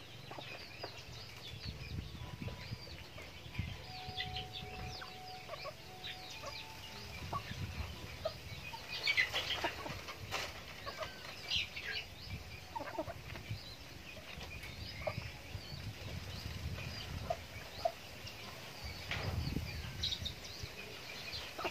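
Backyard chickens clucking softly as they feed at a trough, with many short, high chirps throughout and a few sharp knocks from pecking.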